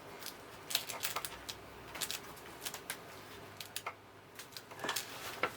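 Irregular light clicks and knocks of plastic parts being handled as the chassis of a CRT TV/VCR combo is pulled against the clips still holding it in its case.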